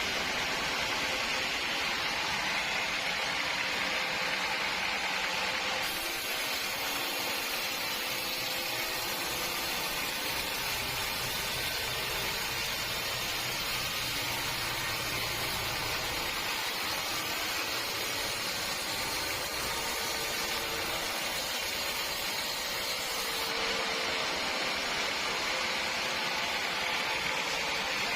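Sawmill machinery running with a steady, even noise. A higher hiss joins about six seconds in and drops away near the end.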